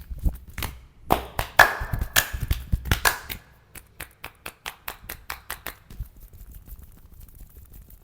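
Percussive massage strokes: hands slapping and clapping on the body in a quick run of sharp strikes, loudest in the first few seconds, then lighter, faster taps at about five a second that fade out about three-quarters of the way through.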